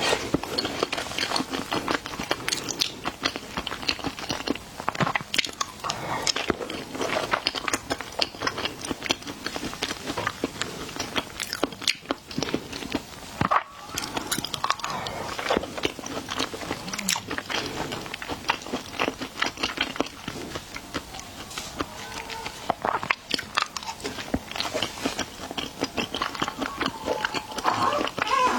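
Close-miked biting and chewing of big shrimp: a constant run of crunchy crackles and wet mouth smacks in an irregular rhythm.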